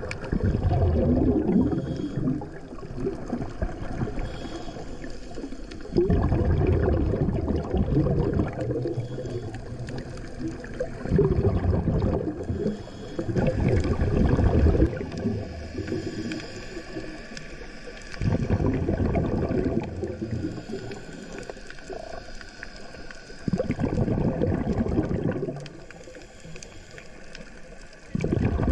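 Scuba regulator exhaust bubbles heard underwater: a loud gurgling rumble with each exhaled breath, in bursts every five to six seconds. Between them is a quieter stretch while the diver breathes in.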